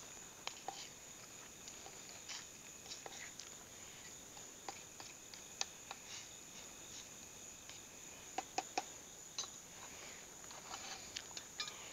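Faint, scattered clicks and scrapes of a metal spoon stirring food in a steel canteen cup, with three quick clinks about eight and a half seconds in. Under it runs a steady high chirring of night insects.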